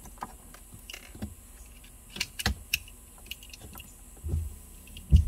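Plastic wiring-harness connectors being handled and pressed together, giving scattered sharp clicks and rattles, with a low thump about four seconds in and a louder one near the end.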